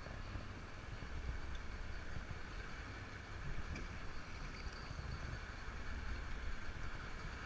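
Wind rumbling on a camera microphone aboard a sea-fishing boat, with a steady hiss of the sea and boat beneath it.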